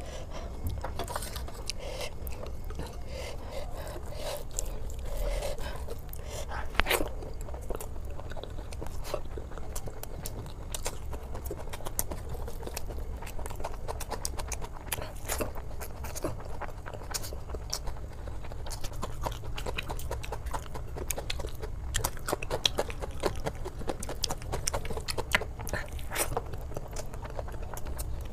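Close-miked eating: a person biting and chewing food, with many sharp crunching clicks throughout.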